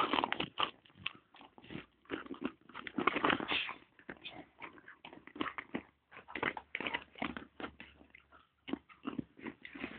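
Belgian Malinois dog making a rapid, irregular run of short sounds.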